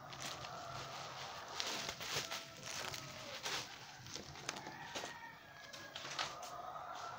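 Bubble wrap and plastic packaging crinkling and crackling as it is handled. A rooster crows in the background, with drawn-out calls early on and again near the end.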